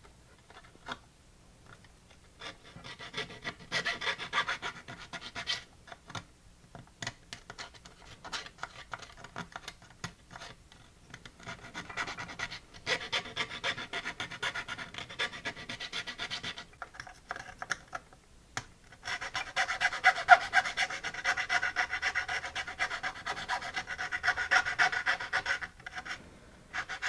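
Hand tool scraping and filing at the edge of a freshly drilled hole in a plastic front panel, enlarging it to take a potentiometer's bushing. It comes in three spells of quick rasping strokes, the longest near the end.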